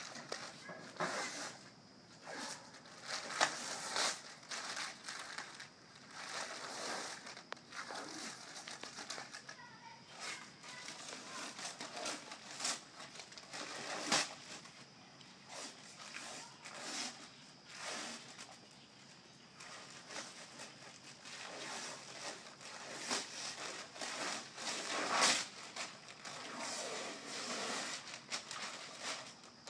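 Protective paper being peeled and torn off a basketball backboard, crinkling and ripping in irregular strokes, some louder than others.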